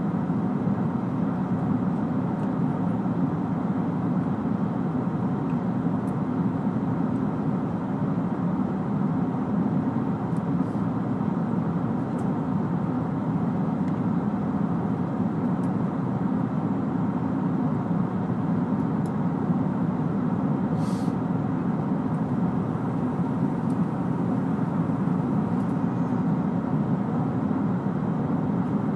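Steady cabin noise of a Boeing 777-300ER in cruise: an even low drone of its GE90 engines and the air rushing past the fuselage.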